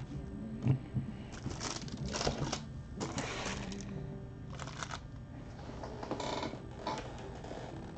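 Trading cards and rigid plastic top loaders being handled on a table: scattered clicks, taps and short rustles.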